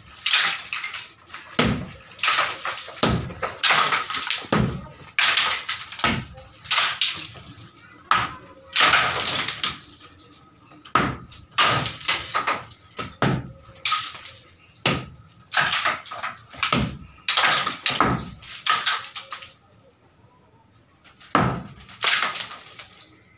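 Hammer blows against the underside of a concrete roof slab, knocking loose concrete off its rusted reinforcing bars, each strike followed by falling debris. The blows come about one a second, pause briefly near the end, then two more follow.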